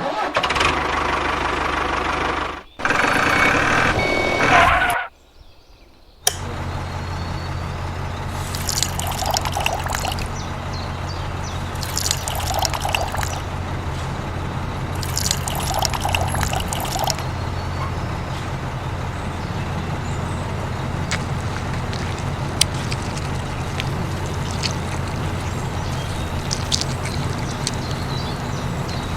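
Liquid pouring in two spells over the first five seconds. About six seconds in, a small motor starts up and runs with a steady low hum, with a few brief scraping or rattling spells and light ticks over it.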